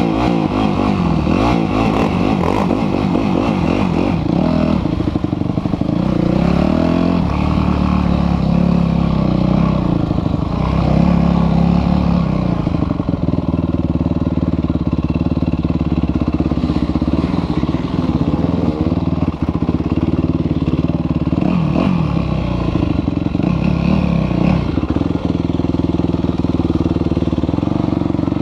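Yamaha motocross bike's engine being ridden hard around a dirt track, revving up and down, its pitch rising and falling again and again with throttle and gear changes.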